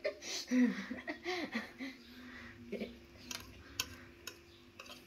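A metal spoon clicking and scraping against a plate several times while cake is eaten from it, after a few short murmurs from a person in the first second or so.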